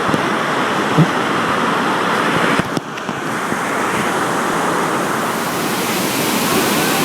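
Iguazu Falls' cascades pouring down: a loud, steady rush of falling water. It dips briefly just under three seconds in.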